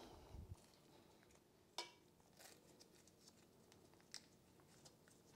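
Near silence, with a few faint clicks and rustles from a stick of butter being unwrapped by hand over the rice cooker pot.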